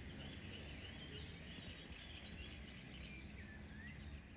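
Songbirds chirping faintly in short calls scattered throughout, over low, steady background noise.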